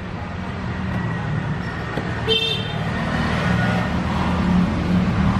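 Road traffic with engines running, growing louder toward the end, and a brief high horn toot a little over two seconds in.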